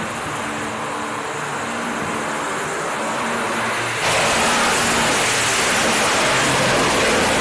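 AV-8B Harrier II's Rolls-Royce Pegasus turbofan at full power on a short takeoff roll: a steady jet roar that grows suddenly louder about four seconds in as the jet passes close by.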